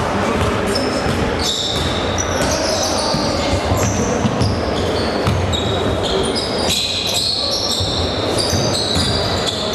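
Basketball being played on a hardwood gym floor: sneakers squeaking in many short high squeals as players cut and stop, and the ball thudding on the boards as it is dribbled, with voices echoing in the hall.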